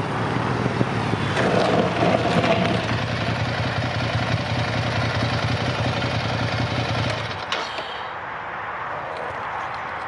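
Ducati Scrambler Desert Sled's air-cooled L-twin engine idling with a steady pulsing beat, then switched off about seven and a half seconds in.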